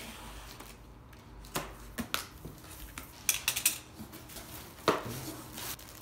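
A cardboard shipping box being opened by hand: a blade slitting the packing tape, then the flaps and plastic-wrapped contents handled. It comes as a series of short, sharp scrapes and knocks, with a cluster about three and a half seconds in and the loudest near the five-second mark.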